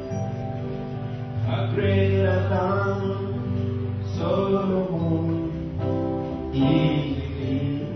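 Gospel praise-and-worship song: a man singing into a microphone over sustained instrumental chords, with sung phrases coming in at about one and a half, four and six and a half seconds in.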